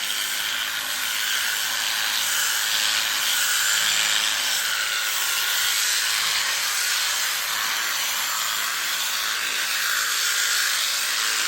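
Electric sheep-shearing clippers running steadily, a continuous high-pitched noise without a clear tone.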